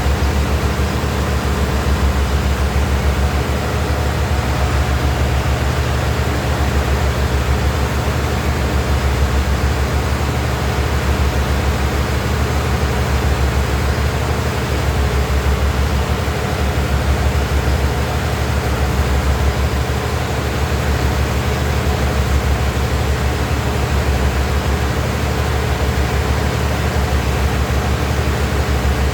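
Steady, loud low machine drone with a constant hum and no change in pitch or rhythm.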